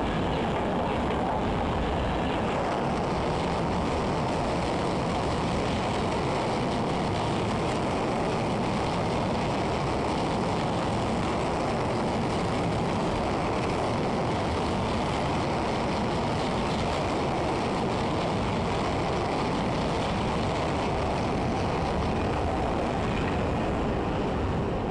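Trains passing at close range: the steady, continuous noise of wagon wheels running over the rails as long trains of coaches and freight wagons roll by.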